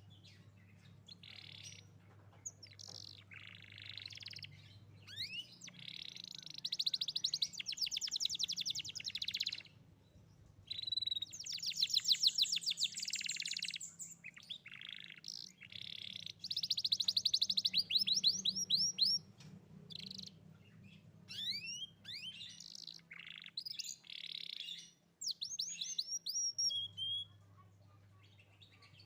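Young domestic canary singing: phrases of fast rattling trills and quick rising notes, each lasting a few seconds, broken by short pauses. A faint steady low hum runs underneath.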